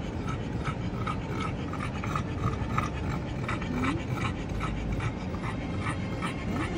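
French bulldog panting quickly and evenly, about two to three breaths a second.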